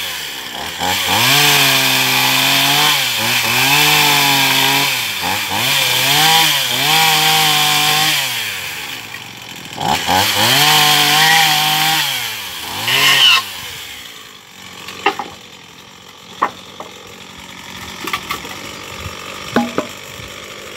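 Small two-stroke chainsaw cutting down through wooden boards. Its engine pitch sags under load in each cut and climbs again between cuts, several times over. About two thirds of the way through, the engine drops to a much quieter level, and a few sharp knocks follow.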